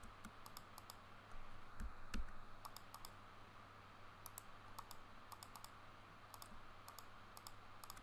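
Scattered, faint clicks of a computer mouse and keyboard, with a couple of dull thumps about a second and a half to two seconds in, over a low steady hum.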